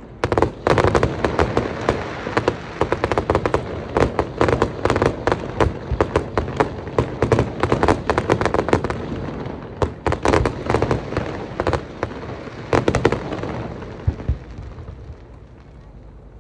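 Fireworks display: a dense barrage of sharp bangs and crackles, several a second, over a continuous low rumble. It thins out and fades after about thirteen seconds.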